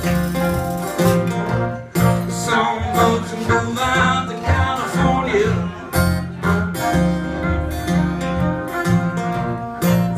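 Live acoustic string band playing: acoustic guitar over a line of plucked upright-bass notes, with a wavering melodic line on top. The music dips briefly about two seconds in.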